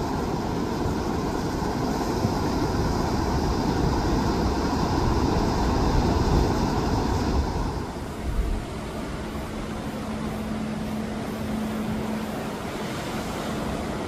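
Sea waves washing over shoreline rocks, a continuous rushing surge that eases off about eight seconds in. A faint steady hum runs underneath in the later part.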